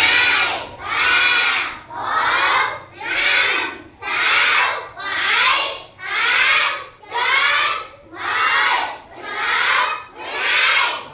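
A class of young children counting aloud in unison in Vietnamese, chanting one number about every second.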